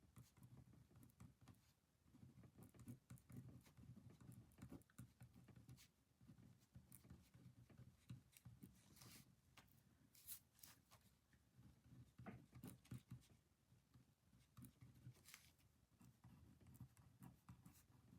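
Near silence: faint room hum with scattered soft scratches and clicks from writing and handling paper at a desk, a little busier about halfway through.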